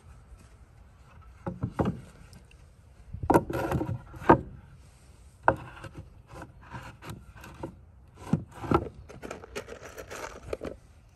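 Short cut pine boards being handled on a wooden deck: set down with irregular hollow knocks and slid and scraped against each other. Near the end, a quick run of small clicks as a hand rummages in a plastic tub.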